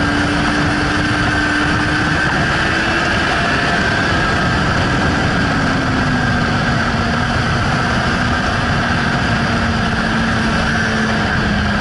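Suzuki GSR 600's inline-four engine running at track speed under a steady rush of wind. The engine note climbs slightly, drops about halfway through and holds lower, then eases down a little further near the end.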